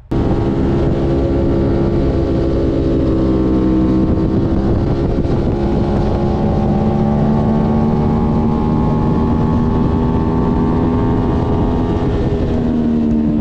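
Sport motorcycle engine running at speed, heard from on board the bike, its pitch holding fairly steady and drifting slowly up and down.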